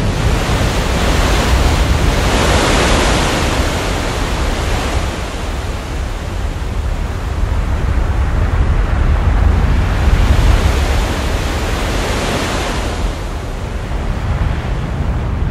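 Rough sea water surging and foaming: a continuous rushing noise over a deep rumble, swelling louder twice, a couple of seconds in and again about two-thirds of the way through.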